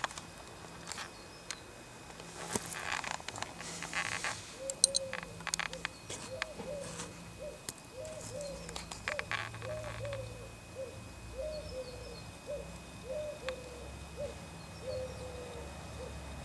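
A bird calling a long series of short hooting notes, about two a second, each rising and falling slightly in pitch, starting about four seconds in. Before that there are scattered clicks and rustling.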